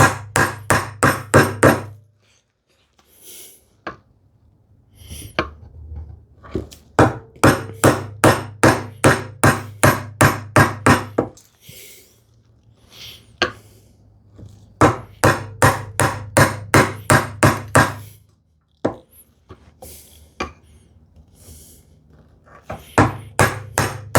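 A bevel-edge chisel is being struck to chop a mortise into a hardwood leg, in runs of quick, even blows about three or four a second. Between the runs are quieter scraping and knocking as waste is levered out. The mortise has not yet broken through into the intersecting mortise.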